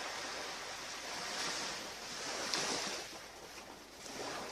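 Ocean waves breaking and washing on a beach: a steady hiss of surf that swells and eases as the waves come in, loudest in the middle.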